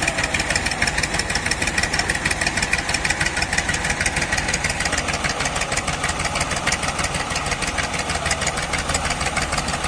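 Massey Ferguson 240 tractor's three-cylinder diesel engine running steadily with a fast, even chug.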